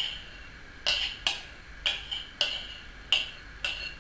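Spoon tapping against the inside of a glass mixing bowl to knock leftover flour out into a glass measuring cup: a series of sharp clinks, about two a second, each ringing briefly.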